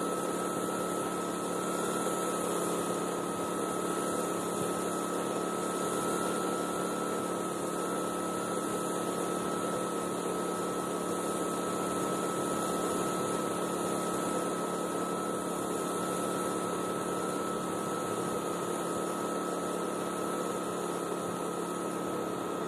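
Steady mechanical hum with a thin, high steady whine, unchanging throughout: a machine running continuously.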